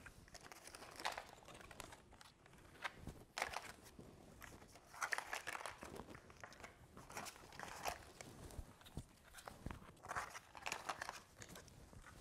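Faint, irregular rustling and light taps of magnetic picture cut-outs being handled, taken from a cardboard box and laid out on a carpeted floor.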